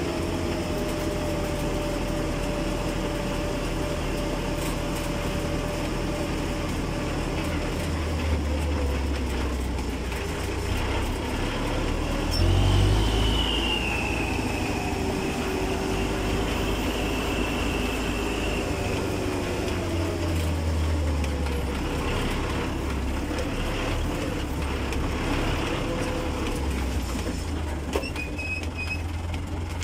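Old tractor engine running under load while driving on the road, towing a heavily loaded tipping trailer in third gear, with a steady whine over the low rumble. It swells briefly about twelve seconds in.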